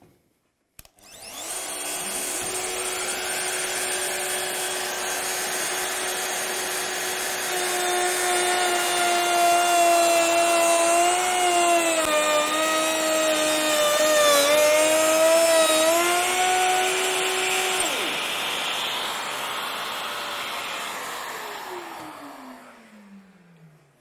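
Festool OF 1010 router with a groove cutter and a dust extractor hose attached. It is switched on with a click and spins up to a steady whine over the extractor's hiss, then cuts a groove through a wooden board for about ten seconds, its pitch dipping slightly under load. The router stops about three quarters of the way in; the extractor's hiss runs on briefly and a tone falls in pitch near the end as the machines run down.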